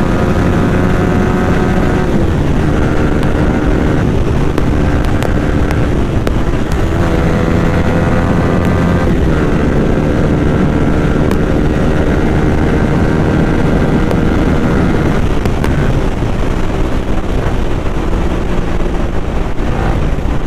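Yamaha R15 V3's single-cylinder 155 cc engine running through an Akrapovic slip-on silencer with its dB killer fitted, ridden on the road. The engine note rises and drops several times as it is revved and shifted through the gears.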